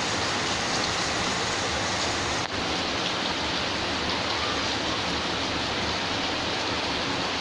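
Steady rushing noise with no pitch or rhythm, briefly dipping about two and a half seconds in.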